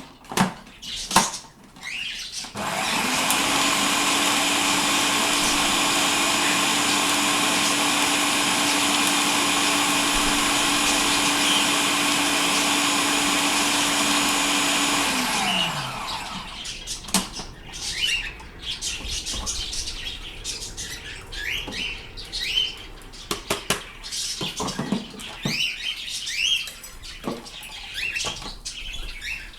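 Electric kitchen chopper motor running steadily for about thirteen seconds while chopping vegetables, then switched off and winding down with a falling pitch. Pet birds chirp before and after it.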